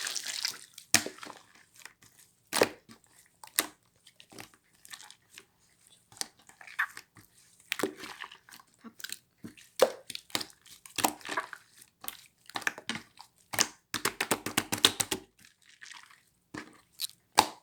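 Irregular crunching and crackling: sharp clicks at uneven intervals, with a dense run of them about fourteen seconds in.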